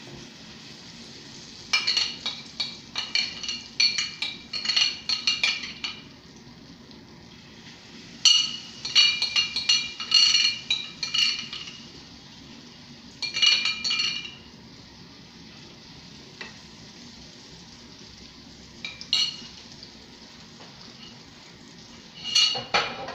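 Oil sizzling steadily under tuna-and-egg patties frying in a pan, broken by repeated bursts of a spoon clinking and scraping against a dish as more of the mixture is scooped into the pan.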